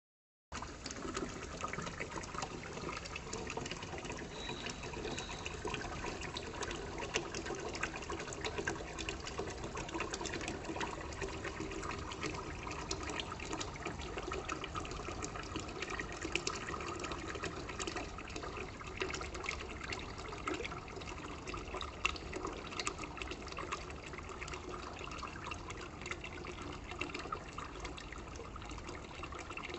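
Water running steadily into a container of poppy seeds, a continuous flowing noise with many small ticks, starting suddenly about half a second in.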